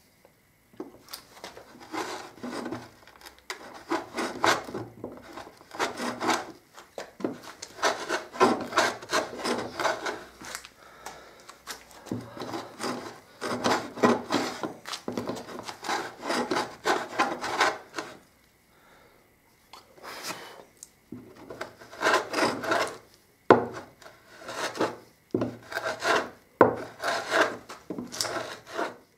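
Wooden rebate plane cutting a rebate along the edge of a wooden tabletop by hand: short, quick scraping strokes in runs as the blade takes shavings, with a brief pause about two-thirds of the way through.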